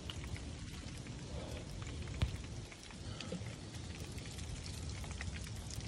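Falling wet snow pattering lightly on leaves, a steady haze of small scattered ticks, with one sharper tick about two seconds in.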